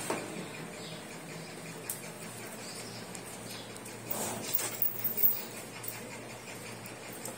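Quiet cattle-shed background: a faint steady low hum with a few small chirps, and a short run of knocks and scuffs about four to five seconds in.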